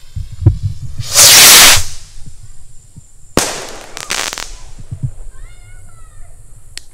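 Flying Pig bottle rocket launching with a loud hiss lasting under a second, then a sharp pop of its burst about two seconds later, followed by a few small crackles.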